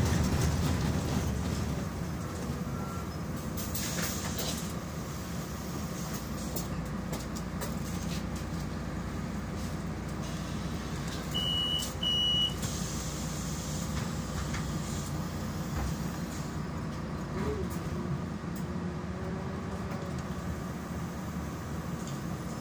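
Solaris Urbino 12 city bus under way, heard from inside the passenger cabin: steady engine and road noise. Two short high beeps come in quick succession about halfway through.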